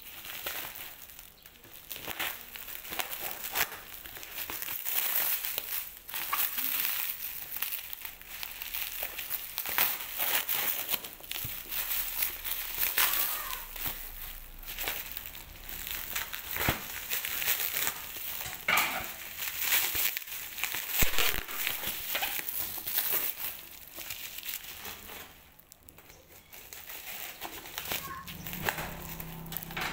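Plastic packaging film around a parcel crinkling and crackling as it is pulled, cut and torn open by hand, in irregular rustles with sharp crackles. There is a brief lull about three-quarters of the way through.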